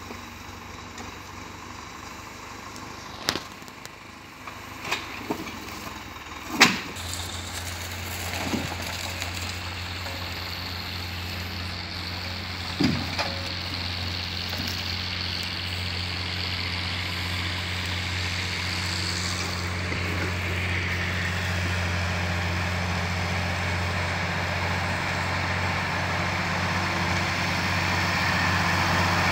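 Farm tractor's diesel engine running, with a handful of sharp knocks in the first dozen seconds while the loading crane works over the timber. About seven seconds in the engine comes up to a steady, higher running speed. It grows gradually louder as the tractor pulls away with its trailer of pine poles.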